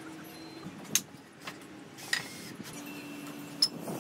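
Wooden boards being handled and fitted together into a frame, with three sharp knocks or clacks spread across the few seconds.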